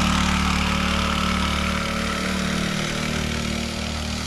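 Small 40cc four-stroke single-cylinder mini bike engine running at a steady speed, growing gradually fainter as the bike moves away.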